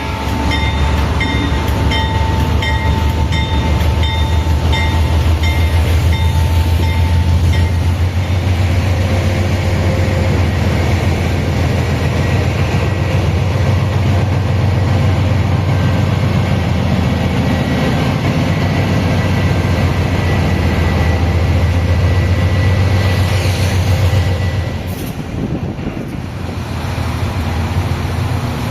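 Loud steady low rumble of a freight train running by, led by a GE C44-9WM (Dash-9) diesel-electric locomotive with GE752AH traction motors, the train running empty. A rapidly repeating high ringing tone sounds over it for the first several seconds, and the rumble eases briefly near the end.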